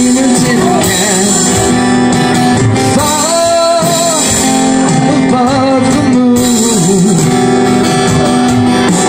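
Live music: a man singing into a microphone while strumming an acoustic guitar, with an electronic drum kit played alongside, all amplified through a PA.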